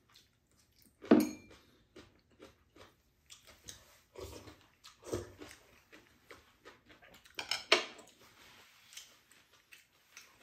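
Two people eating at a table: chopsticks and spoons clicking against ceramic bowls, with chewing of glass noodles and chicken. Scattered small clicks run throughout, with a few louder sounds, the loudest about a second in and another near seven and a half seconds.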